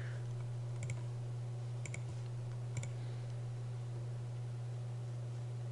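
Computer mouse clicking a few times, single sharp clicks and a quick pair about a second apart, over a steady low electrical hum.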